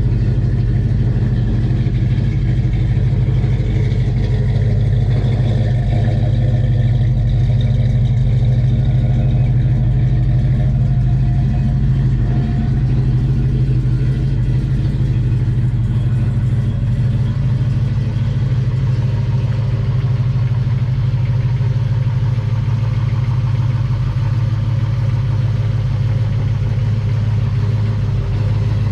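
Car engine idling steadily, with an even low note that holds without revving.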